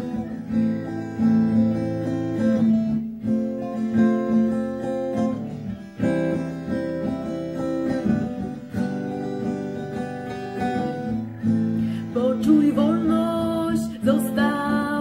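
Acoustic guitar strummed in a steady, repeating chord pattern as a song's instrumental opening. A woman's singing voice comes in over the guitar about twelve seconds in.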